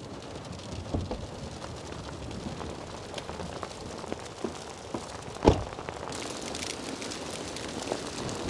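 Heavy rain mixed with hail pelting down: a steady hiss of rain with many small ticks of hailstones striking, and one louder knock about halfway through.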